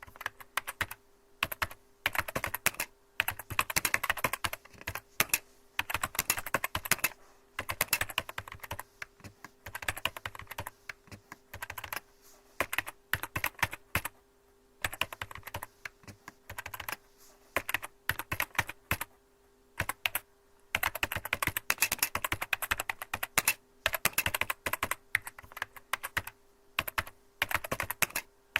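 Typing on a computer keyboard: fast runs of key clicks in bursts, with short pauses between them. A faint steady hum sits underneath.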